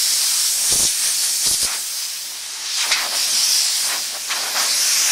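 Compressed-air blow gun blowing drilling swarf off a vehicle's metal roof, a loud steady hiss that swells and eases and cuts off abruptly near the end.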